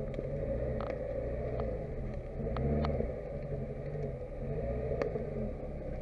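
Lada Niva 21214's four-cylinder engine revving up and down several times under load as the 4x4 churns through mud and water, with a few faint clicks; the car is bogging down and getting stuck.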